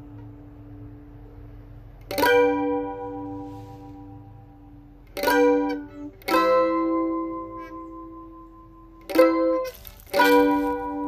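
Mandolin playing a slow tune: five plucked chords, each struck sharply and left to ring and fade, with pauses of a second or more between some of them.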